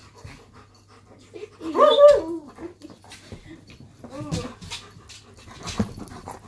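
German Shepherd and Chihuahua squabbling: irritated grumbling and whining at each other. The loudest is a wavering call about two seconds in, with a shorter one around four seconds.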